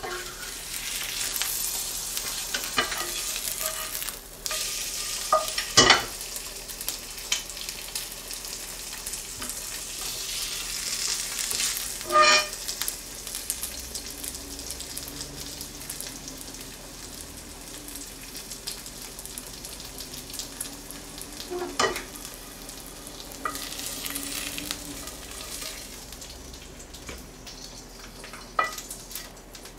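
An egg sizzling in a ceramic-coated frying pan on a gas burner, the sizzle swelling and fading, with a wooden spatula scraping the pan and three sharp knocks against it.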